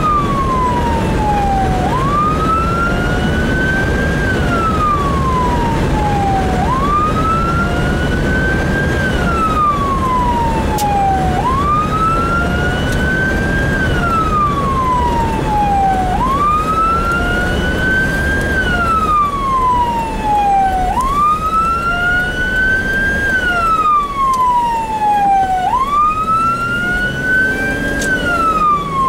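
Fire department response vehicle's siren in a slow wail, rising and then falling about every four and a half seconds. It is heard from inside the vehicle's cab over a steady engine and road rumble.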